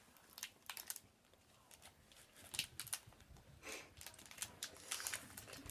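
Foil Pokémon card booster pack wrapper being torn open and handled, with irregular soft crackles and clicks.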